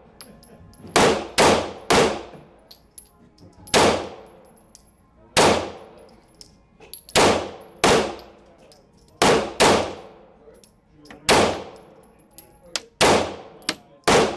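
9mm pistol firing about a dozen shots at an irregular pace, several in quick pairs a few tenths of a second apart as double taps. Each shot is a sharp crack followed by a long echoing decay.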